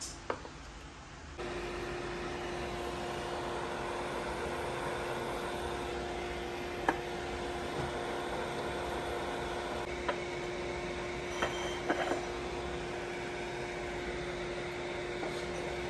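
Induction cooktop switching on about a second in, then running with a steady electrical hum and fan noise as it heats a pot of water. A few light clicks and taps sound over it.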